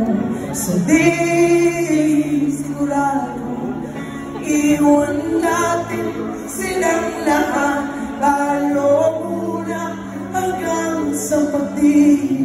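Live band performance: a singer's voice over guitars and held bass notes, heard through the venue's PA speakers.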